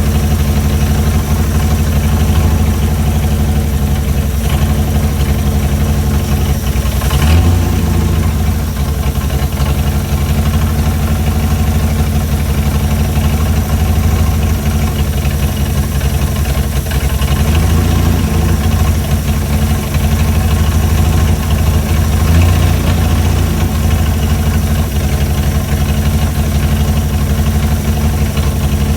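Chrysler Hemi 265 straight-six engine idling steadily while its idle is being set, the revs lifting briefly three times, about 7, 17 and 22 seconds in.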